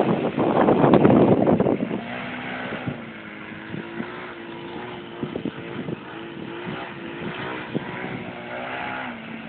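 Radio-controlled Extra 330S aerobatic model plane's motor and propeller running steadily as it hangs nose-up in a hover, the pitch stepping down and up a few times as the throttle is worked. Loud wind buffeting on the microphone for the first two seconds.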